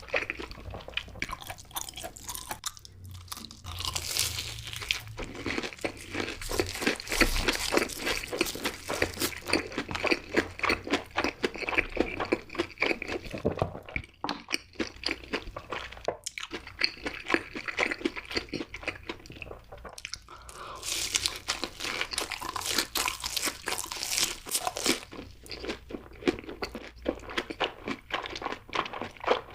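Close-miked ASMR eating: crispy fried food being bitten and chewed, a steady run of crunching and wet chewing clicks. It grows louder in bursts of crunching about four seconds in and again about two-thirds of the way through.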